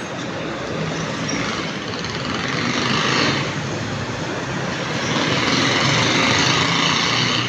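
Water-well drilling rig running: a steady mechanical noise that swells louder about three seconds in and again for a couple of seconds near the end.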